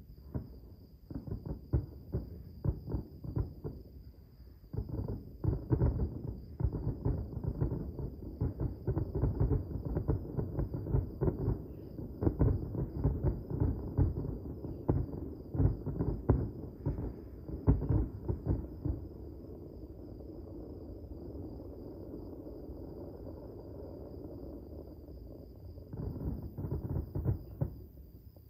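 Distant fireworks display: rapid volleys of muffled booms, densest through the middle. The booms give way to a steady low rumble, then a last short cluster of booms near the end.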